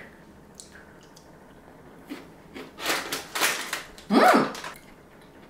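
A click and about a second of crunching as a crunchy chocolate-coated panda biscuit is bitten and chewed, then a short hummed 'mm' from the eater about four seconds in.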